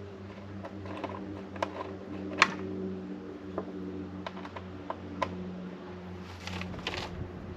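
Scattered light clicks and taps of small hardware being handled while fitting a motorbike screen, from screws and metal washers on the mounting, about half a dozen in all with the sharpest one about two and a half seconds in. A brief rustle comes near the end, over a steady low hum.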